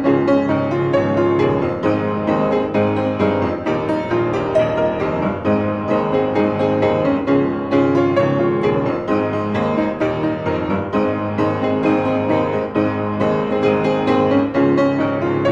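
Piano music playing, a steady flow of notes.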